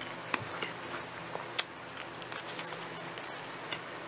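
Close-up chewing of a mouthful of pizza: scattered short wet mouth clicks and smacks, with one louder click about a second and a half in.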